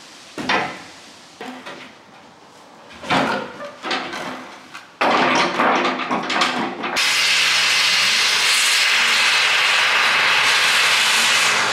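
Knocks and clattering of metal parts being handled, then from about seven seconds in a gas blowtorch flame burning with a loud, steady hiss as it heats a seized, rusted pivot joint on the crane arm to free it.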